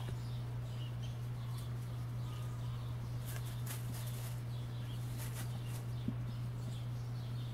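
Dry fallen leaves rustling in a few short crisp spells as kittens scamper and pounce through them, with a small thud about six seconds in. Under it all runs a steady low hum, and faint bird chirps sound in the background.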